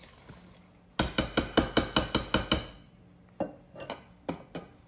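Wire whisk clinking against a stainless steel mixing bowl while whisking batter. There is a quick, even run of about nine strokes starting about a second in, then a few scattered knocks near the end.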